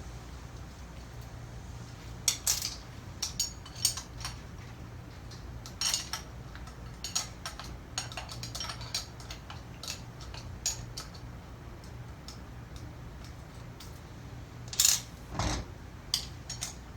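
Scattered metallic clinks and clicks of tools on the valve's bolts and metal parts as the diaphragm valve is unbolted, with one louder clank and a thud near the end, over a steady low hum.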